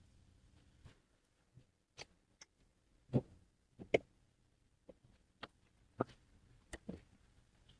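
Irregular clicks and knocks of hands handling the unboxed Pgytech Mantispod tripod and its packaging, about ten in all, the loudest a little after three seconds and near four seconds.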